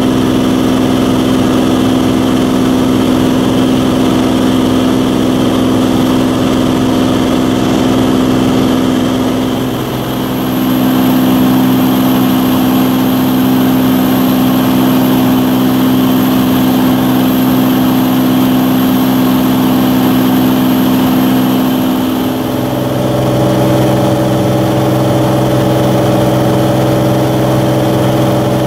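Cirrus SR22's six-cylinder piston engine and propeller droning steadily in cruise, heard from inside the cabin. The drone dips briefly and shifts in tone twice, about a third and three-quarters of the way through.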